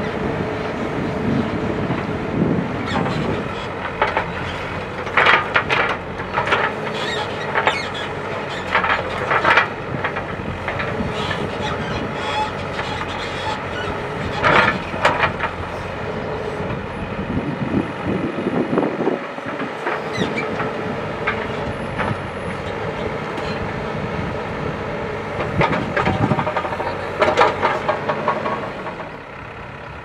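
ACE DIGMAX backhoe loader's diesel engine running steadily under load as the backhoe arm digs, with sharp clanks and knocks from the bucket and linkage at intervals.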